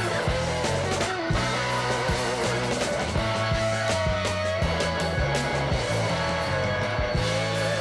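Background music: a guitar-led rock track with bass and drums.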